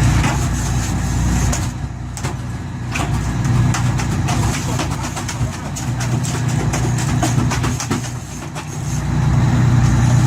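An engine running steadily, its low hum swelling and easing a few times, with scattered knocks and clatter over it.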